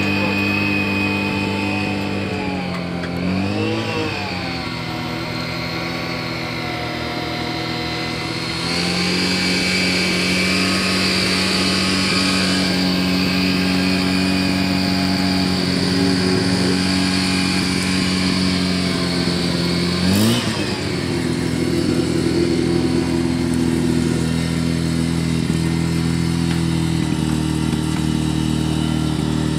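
Mazda rotary engine idling steadily, revved briefly about three seconds in and again about twenty seconds in.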